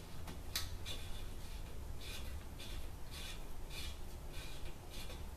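Faint, repeated soft scraping and rubbing, about twice a second, as the coupling nut of a braided toilet water supply line is threaded on by hand under the tank, over a low steady hum.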